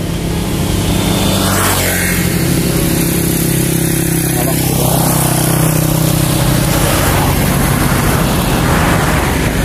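An engine running steadily with a low hum that shifts slightly in pitch about two seconds in.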